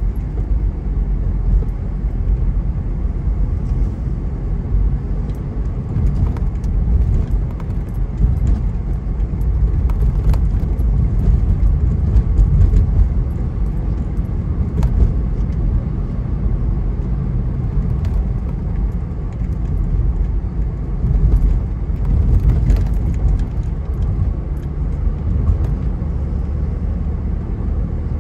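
A car driving at road speed: a steady, low rumble of tyres and engine, with faint scattered ticks and rattles throughout.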